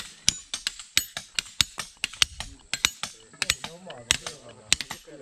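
Rapid, repeated sharp knocks, about three a second, with a voice talking briefly in the middle.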